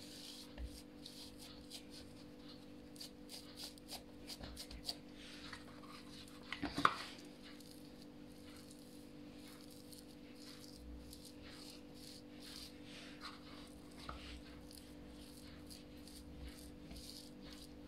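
Faint soft pats and taps of hands pressing folded pastry dough flat on a stone countertop, over a steady low hum. A brief, sharper sound stands out about seven seconds in.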